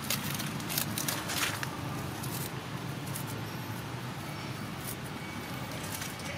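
A few short crackles of dry leaf litter in the first second and a half, over a steady low outdoor hum.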